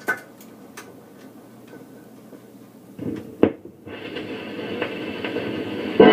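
Wurlitzer 1015 jukebox between records: a few light mechanical clicks, a single thump about three and a half seconds in, then a steady hiss that grows louder until the next record's music starts at the very end.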